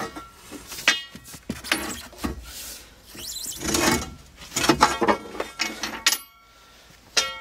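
Steel pry bar levering against a track loader's steel undercarriage, giving an irregular series of sharp metal knocks and clinks and a stretch of grinding scrape about four seconds in. The last two knocks, about six and seven seconds in, ring on with a clear metallic tone.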